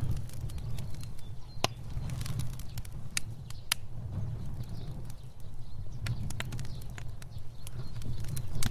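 Fire burning: a steady low rumble of flame with irregular sharp crackles and pops, a few louder snaps about two, three and four seconds in.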